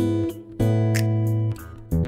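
Background music: acoustic guitar strumming chords, one ringing out for about a second.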